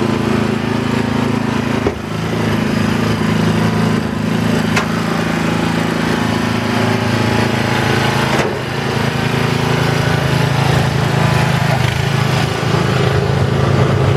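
Small petrol engine of a Muck Truck wheeled mini dumper running steadily under load, its pitch shifting slightly about two seconds in and again about eight seconds in.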